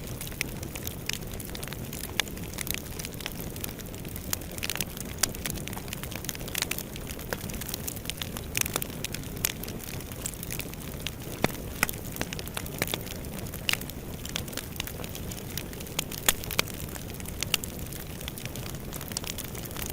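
Wood fire burning in a fireplace: a steady low rush of flames with frequent, irregular crackles and sharp pops.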